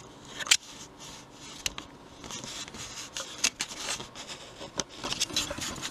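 Handling noise from a camera being adjusted on a tripod: scattered sharp clicks and knocks with rubbing and scraping in between.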